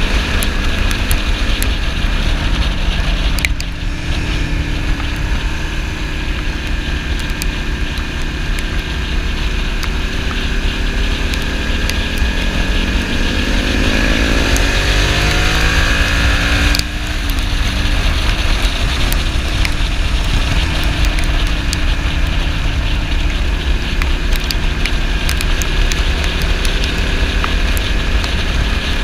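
Ducati Monster S2R 800's air-cooled L-twin engine under way, with wind rushing on a chest-mounted microphone. The engine note dips a few seconds in, then climbs steadily in pitch as the bike accelerates and drops sharply at an upshift a little past halfway, running on steadily after.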